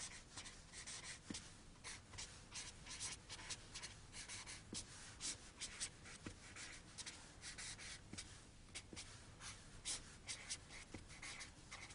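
Felt-tip marker writing on a paper pad: a continuous run of short, faint pen strokes as letters are drawn.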